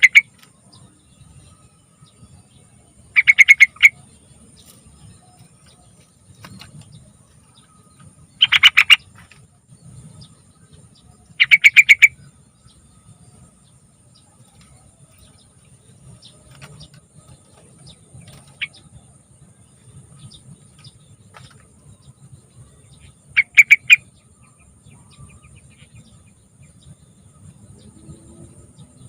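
Sooty-headed bulbul singing: four short, loud bubbling phrases of rapid notes, spaced several seconds apart.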